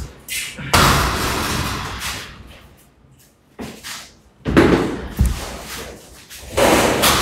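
A series of loud slams or bangs, each followed by a rattling, hissing tail that fades away: one about a second in, more around four and a half seconds, and another near the end.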